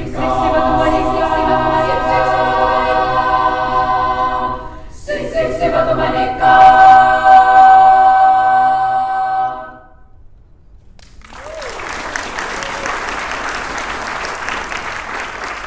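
Children's choir singing a cappella in held chords over two phrases, the second ending on a loud, long final chord that cuts off about ten seconds in. After a short pause an audience applauds.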